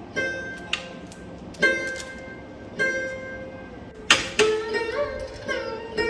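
Background instrumental music on a plucked string instrument: slow single notes left to ring at first, then a sharp louder stroke about four seconds in and quicker notes after it.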